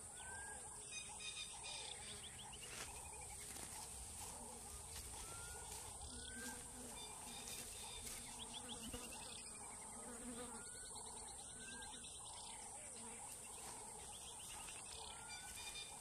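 Faint wild outdoor ambience: insects drone steadily at a high pitch while birds call. Pairs of short rising whistles come back about every five seconds, and quick descending trills are heard a few times.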